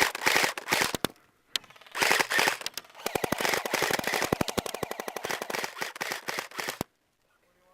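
Airsoft guns firing rapid bursts of sharp, dense clicks, with a short pause about a second in. The firing cuts off suddenly near the end.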